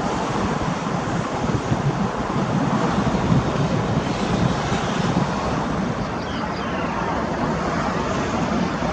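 Steady jet engine rumble of a Boeing 787-8 airliner near the runway end, mixed with wind noise on the microphone.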